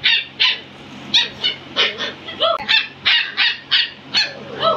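Pomeranian puppy yipping and barking in play, a quick run of a dozen or so short, high-pitched yaps.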